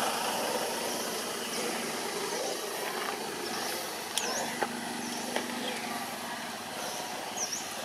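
Outdoor ambience: a steady hiss with a low engine hum from a distant vehicle coming in about halfway through, short high chirps repeating about once a second, and a few sharp clicks.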